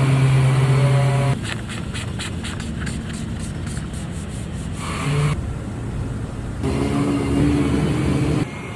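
Sanding a tochi (horse chestnut) wood slab. A sander's steady whir opens and returns near the end, and in between come quick rubbing strokes on the wood, about four a second.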